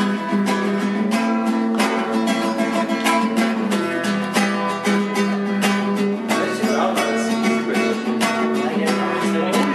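Acoustic guitar strummed in a steady, quick rhythm.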